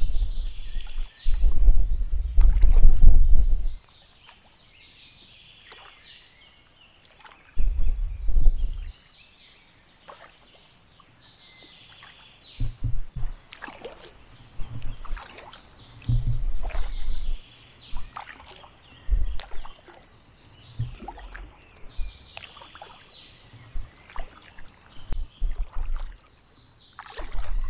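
Kayak paddle strokes dipping and splashing in canal water, one every couple of seconds, with loud low buffeting bursts on the microphone, the strongest about one to four seconds in and again around eight seconds.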